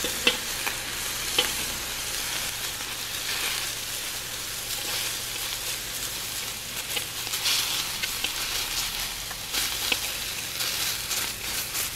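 Strips of beaver meat sizzling on a flat-top griddle, a steady hiss, with scattered light clicks and scrapes of a fork and knife on the griddle as the meat is cut into cubes.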